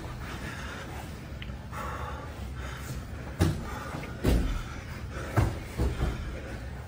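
Grapplers in gis moving on a jiu-jitsu mat: dull thumps of bodies, knees and hands landing on the mat, four or five of them in the second half, over rustling of gi fabric.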